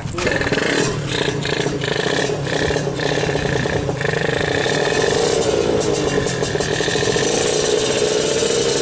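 Two-stroke Kawasaki Ninja drag-bike engine catching just after a push start, then running with its pitch rising and falling under short throttle blips. The engine is being fired up for the first time on a new tune.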